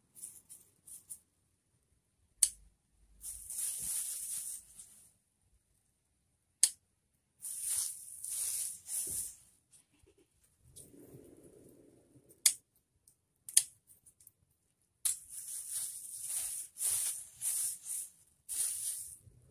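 Hand scissors snipping mint stems, a few sharp clicks among bursts of rustling from the cut leaves and a plastic bag being handled.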